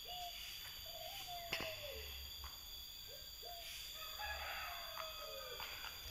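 A rooster crowing faintly: a few drawn-out calls that drop in pitch at the end.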